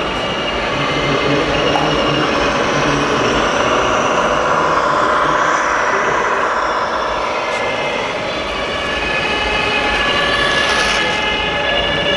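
Radio-controlled model fire trucks driving, with a steady truck-like engine sound from their sound modules over constant background noise.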